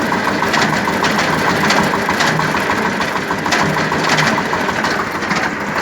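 Tractor engine running with the PTO engaged and driving a sickle-bar mower, with a rattling knock repeating several times a second over the engine note. The owner hears it only when the mower is loaded onto the PTO and places it inside the gearbox, not in the belts; the gearbox housing also heats up.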